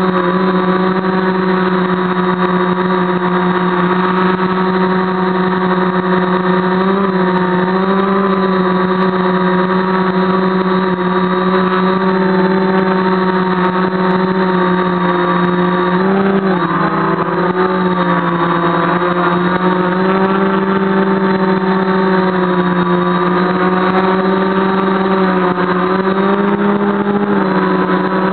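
Quadcopter's brushless motors and 10x4.7 propellers running steadily in a hover, heard up close from the onboard camera as a loud, even whine. Its pitch wavers briefly about halfway through, as the motor speeds change.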